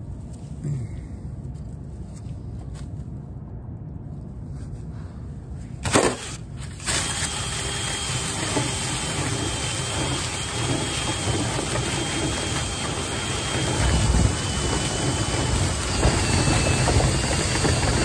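A cordless drill spins a rotary brush on a flexible rod inside a lint-clogged dryer vent duct. It starts about seven seconds in as a steady whir with a thin whine, after a short knock about six seconds in.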